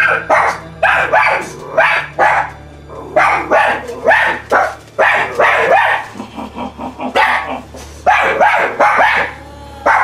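A dog barking repeatedly, about two to three barks a second, over a steady low hum.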